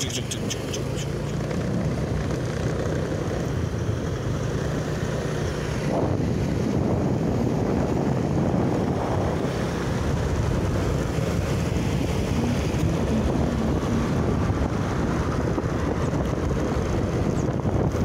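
Road and engine noise of a moving vehicle, a steady low rumble with wind buffeting the microphone. A short run of fast ticks sounds in the first second.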